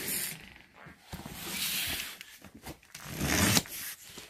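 Cardboard shipping box being handled and slid into place, making two rough rasping scrapes, one about a second in and one about three seconds in.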